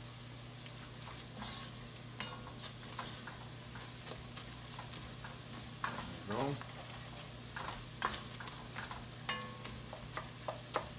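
Onions and garlic frying with a soft sizzle in an enamelled cast-iron Dutch oven, while a wooden spoon stirs them, tapping and scraping against the pot, more often in the second half.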